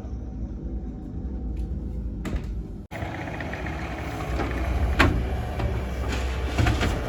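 Heavy equipment engine running while a concrete walkway is broken up and scraped out, with clattering of concrete and a sharp crack about five seconds in. After a brief dropout about three seconds in, the sound is louder and rougher.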